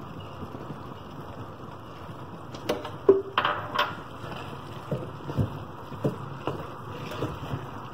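A spoon stirring grated carrots and ghee in a metal pot, knocking and scraping against the pot: a cluster of clatters about three seconds in, then repeated knocks roughly twice a second, over a steady hiss.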